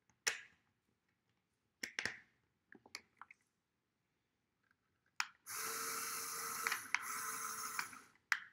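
A few light clicks as the motor's wire is plugged in. About five seconds in, a LEGO electric motor starts whirring steadily as it drives the gate through a worm gear. It stops briefly near the end, then starts again.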